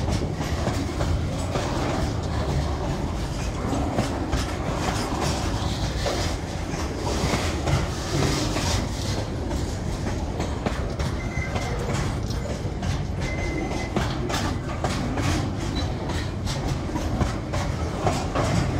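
Freight train container wagons rolling past steadily, wheels clicking over the rail joints over a continuous rumble.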